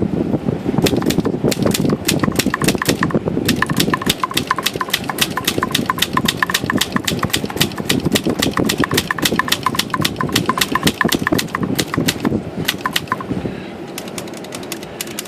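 Montgomery Ward Brother manual typewriter being typed on: rapid keystrokes, several a second, each type bar striking with a sharp clack, stopping about 13 seconds in. The keys are being tested on a freshly flushed and lubricated type-bar segment to see whether any still stick. A steady low rumble runs underneath.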